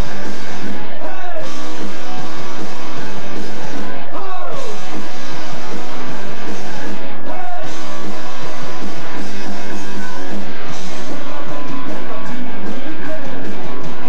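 Punk rock band playing live and loud: electric guitars and bass over drums.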